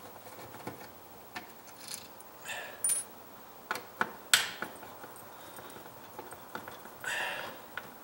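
Small metallic clicks and scrapes of a screwdriver working the mounting screw of a wall switch in its electrical box, with a few sharper ticks and a brief rustle near the end.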